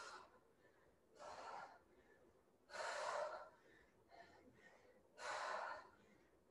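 A woman breathing hard from the effort of dumbbell squat-and-press reps: a strong, breathy huff about every one and a half to two and a half seconds, with a weaker one in between.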